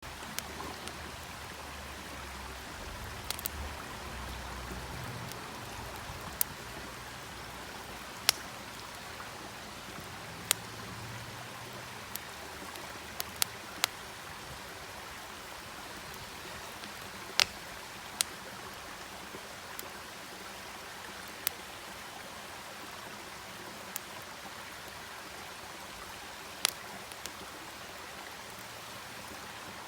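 Wood campfire burning: a steady hiss with sharp, irregular crackling pops every second or few.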